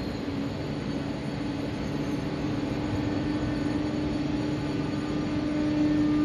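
BB 27300-class electric locomotive humming at standstill with a steady, unchanging tone over a low rumble, growing gradually louder. This is its traction and cooling equipment running before it pulls away.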